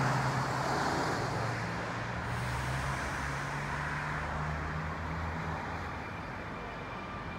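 Sydney Trains Waratah double-deck electric train pulling slowly into the platform: a steady rumble with a low hum, and a faint steady whine joining near the end.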